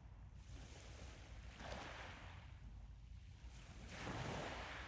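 Small harbour waves washing against the shore twice, each a short swelling splash, over a steady low rumble of wind on the microphone.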